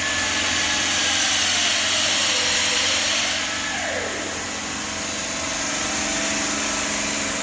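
Denver five-axis CNC bridge saw's diamond blade cutting 20 mm black granite: a steady loud hiss of the cut, with a faint whine that slides down in pitch and swings back up about halfway through.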